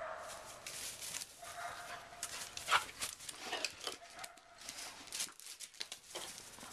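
A dog whining in short high notes while running about, amid rustling and sharp knocks, the loudest about two and a half seconds in.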